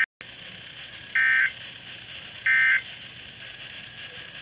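Weather radio emergency alert data bursts: short, loud, buzzy digital tone bursts, two of them about a second apart after the tail of a first, over steady radio hiss. The signal drops out for a moment right at the start.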